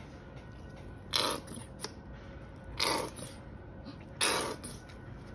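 Three short wet squelches, about a second and a half apart, as yellow mustard is applied to a raw, dry-rubbed pork shoulder.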